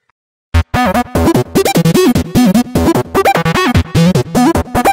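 Electronic intro music in short, choppy pitched notes that slide up and down, starting about half a second in after a brief silence.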